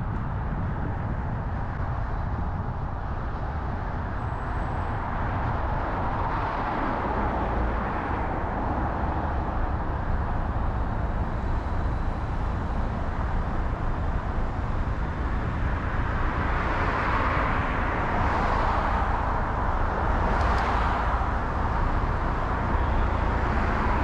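Road noise from a car driving through city traffic: a steady low rumble with tyre noise, and other vehicles passing a few times in the second half.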